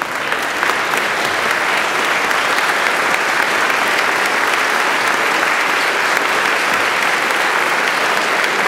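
A large crowd applauding steadily, many hands clapping at once in a sustained, even ovation.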